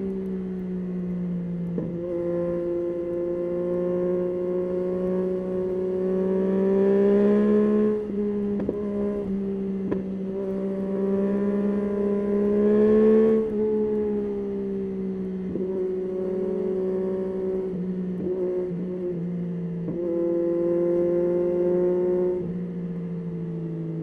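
Yamaha Tracer 9's 890 cc three-cylinder engine running under way at fairly steady revs. The pitch rises and dips in small steps as the throttle is opened and eased, swelling louder twice before dropping off suddenly.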